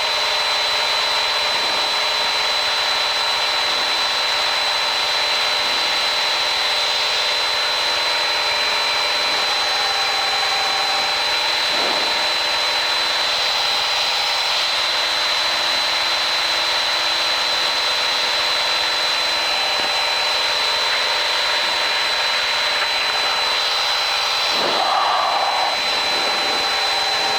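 Steady cabin noise of a Piper PA-28-161's Lycoming four-cylinder engine and propeller in the climb after takeoff, with a constant high-pitched whine over it. A short sweeping sound rises out of it near the end.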